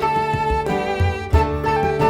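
Background music with a violin-like melody over a steady beat.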